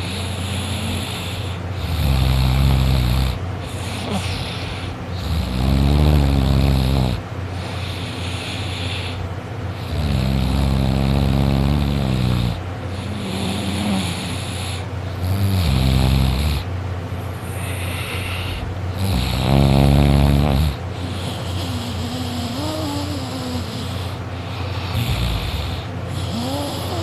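A sleeping boy snoring loudly: five snores, each lasting one to two seconds, come about every four seconds, with quieter breathing between them and no loud snore in the last few seconds.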